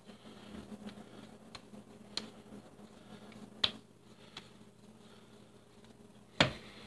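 Soft handling of sourdough dough and flour by hand, with three sharp knocks against the ceramic mixing bowl, the loudest about six and a half seconds in. A faint steady hum runs underneath.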